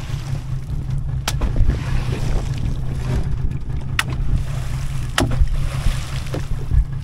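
Wind buffeting the microphone over open sea water, with three sharp slaps spread through it.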